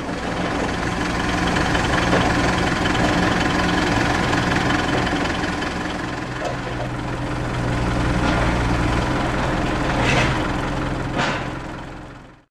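A Mitsubishi Canter's 4M42T four-cylinder turbo diesel idling steadily, with two short knocks near the end.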